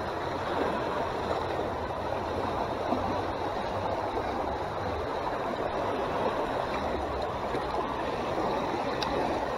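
Steady rush of river current running fast over rocks in a riffle.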